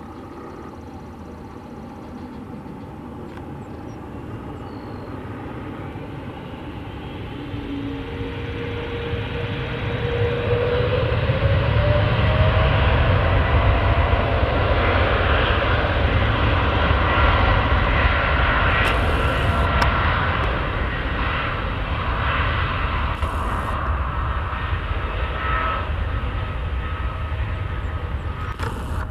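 Boeing 777F's two GE90 turbofans spooling up on the takeoff run, a whine rising in pitch about ten seconds in as the rumble grows loud. The jet noise then eases slowly as the plane moves off.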